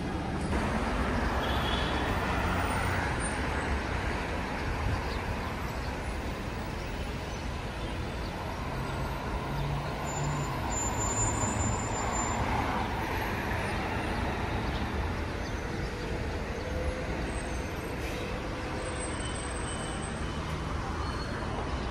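Steady outdoor street noise with road traffic running throughout, no single event standing out.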